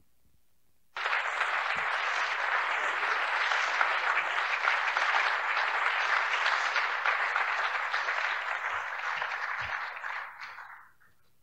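Audience applauding. It starts abruptly about a second in and fades out near the end.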